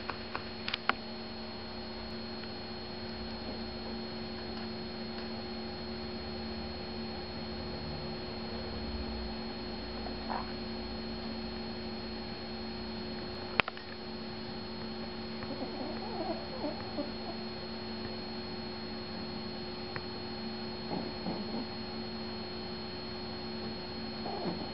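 Steady electrical hum with a faint high whine. It is broken by a sharp click near the start and another about halfway through. A few faint, short, soft sounds come in the second half.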